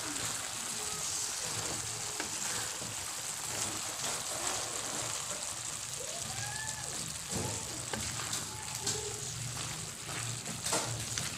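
Vegetables sizzling in a pan as a wooden spatula stirs them, with a steady hiss and a few scraping clicks of the spatula against the pan.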